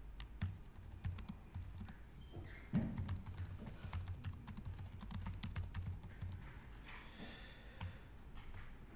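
Typing on a computer keyboard: quick, irregular key clicks, with a louder thump about three seconds in.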